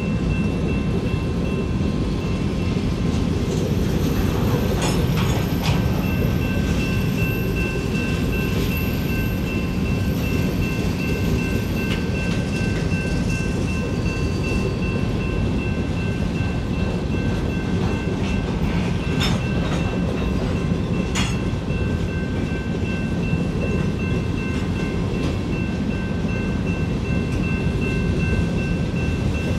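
Covered hopper freight cars rolling past at steady speed: a continuous rumble of steel wheels on rail, with steady high-pitched tones over it and a few sharp clicks as wheels cross rail joints.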